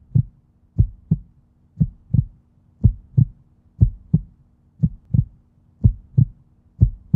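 Heartbeat sound effect: paired low thumps, lub-dub, repeating about once a second over a faint steady low hum.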